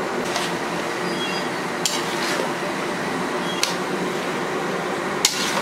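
Metal spatula stirring vegetables in a stainless steel karahi, clinking sharply against the pan a few times, the loudest clink near the end, over a steady low hum.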